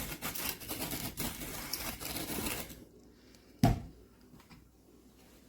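Manual conical-burr coffee grinder being cranked, a dense crunching rattle of beans breaking in the burrs that stops about three seconds in, followed by a single sharp knock.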